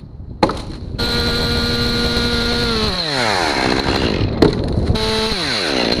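Two-stroke chainsaw held at full throttle, then its revs falling away; it is revved briefly again shortly before the end and winds down once more before the sound stops abruptly.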